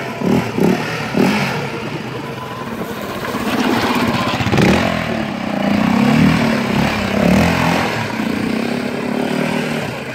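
Yamaha Raptor 700R quad's single-cylinder four-stroke engine revving hard under load on a dirt hill climb, with short throttle blips near the start and the pitch rising and falling after that.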